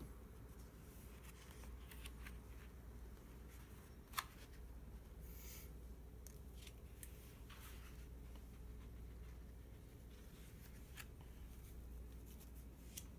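Faint rustling and crackling of large sheets of thin, brittle printer-proof paper being lifted and turned by hand, with scattered light ticks and one sharper click about four seconds in.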